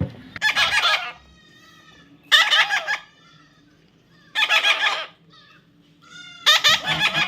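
Parrot giving four harsh squawking calls, each under a second long, about two seconds apart.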